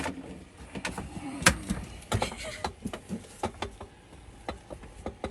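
Irregular knocks, clicks and clatters of things being handled and set down, with one sharp knock about a second and a half in.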